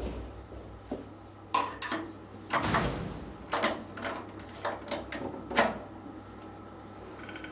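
A series of irregular knocks and short scrapes, about a dozen over several seconds, with a longer scrape between two and three seconds in and the sharpest knock near the end.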